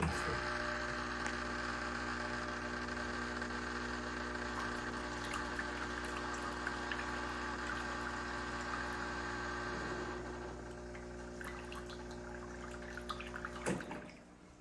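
Fully automatic coffee machine's internal pump humming as it pushes rinse water through the system, with water rushing. The sound drops in level about ten seconds in, then stops near the end after a brief knock.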